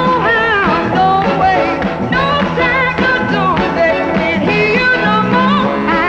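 A 1960s Motown pop-soul song: a singer holding wavering notes with vibrato over a band with a steady beat.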